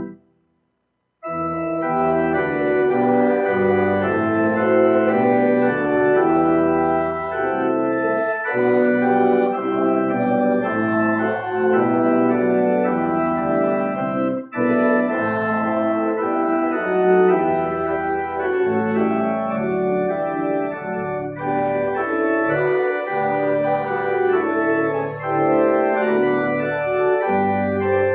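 Organ music: full sustained chords that change every second or so. It starts about a second in after a brief silence.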